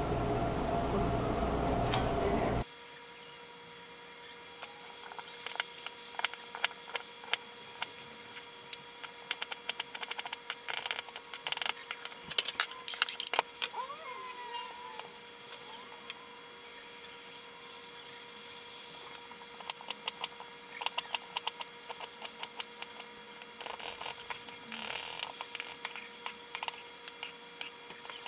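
Chef's knife chopping onion on a cutting board: quick runs of sharp taps with pauses between, over a faint steady hum. A louder, denser sound fills the first two and a half seconds and cuts off suddenly.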